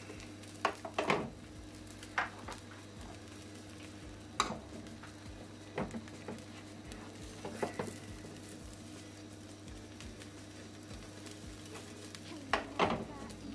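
A thin egg net frying quietly in a non-stick pan while a slotted spatula scrapes and knocks against the pan about six times, loudest near the end. A steady low hum runs underneath.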